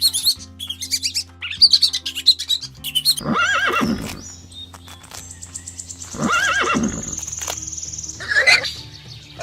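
Two long rising-and-falling animal calls, about three seconds apart, over steady background music, with a high trill and a shorter call near the end.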